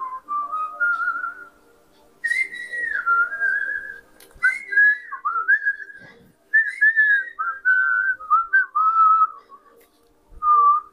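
A whistled melody, one clear line moving up and down in phrases with short pauses between them, over a faint held background tone.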